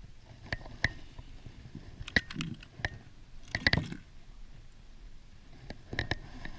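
Small water splashes and drips, with scattered sharp clicks and knocks, typical of gear being handled in a kayak on the water. The loudest is a short wet burst about three and a half seconds in.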